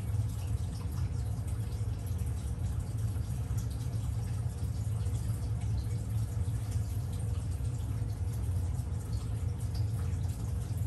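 Steady low hum of running equipment in a small room, even throughout, with a faint hiss above it and no sudden sounds.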